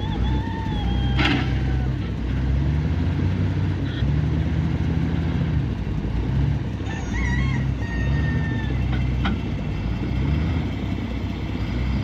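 Komatsu WA470 wheel loader's diesel engine revving up and down repeatedly under load as it lifts logs off a log trailer with its grapple.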